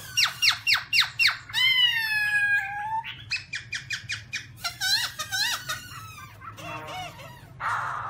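Black-throated laughingthrush singing: a run of about six quick downslurred whistles, then a long slurred note, then a fast string of short chattering notes. Near the end it gives a harsh, rasping call.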